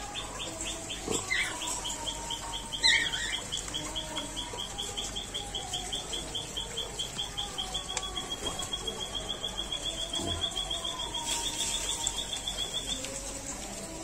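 A high, thin chirp repeated evenly about five times a second, sliding very slightly lower and stopping about a second before the end, with a couple of short downward-sliding calls in the first few seconds.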